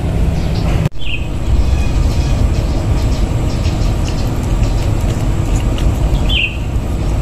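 A steady low rumbling noise that briefly cuts out about a second in, with a bird chirping twice in the background: a short falling chirp about a second in and another near the end.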